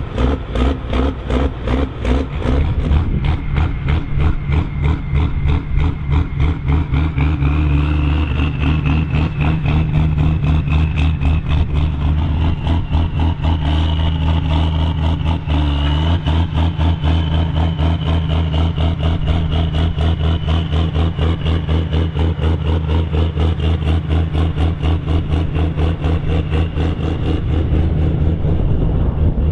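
Fendt Favorit 926 tractor's six-cylinder turbodiesel running steadily as the tractor drives, with a thin high whistle rising over the engine about seven seconds in and holding.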